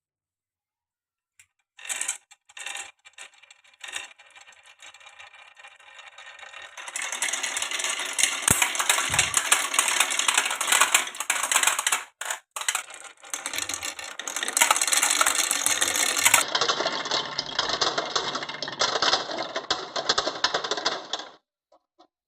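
Glass marbles rolling and clattering down a wooden marble run: a few separate clicks at first, then a dense, continuous rattle of many marbles at once that stops abruptly near the end.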